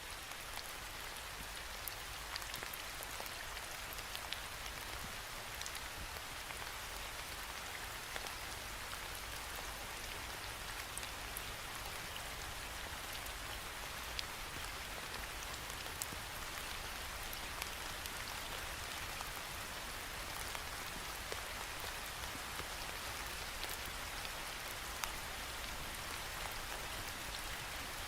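Steady rain falling against a window pane, a constant hiss with scattered individual drop ticks.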